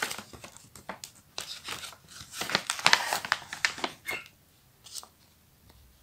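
Small paper packet crinkling and rustling as it is picked up and handled, in irregular crackles that are busiest mid-way and die out about five seconds in.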